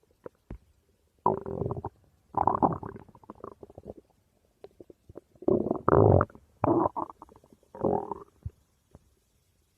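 A person's stomach growling and gurgling, heard close up in a run of about five separate rumbles with short gaps between them.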